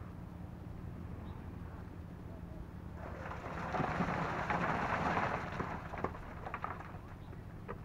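A machine engine runs steadily while, about three seconds in, wet concrete is poured with a rushing, gritty noise that lasts about three seconds, followed by a few knocks.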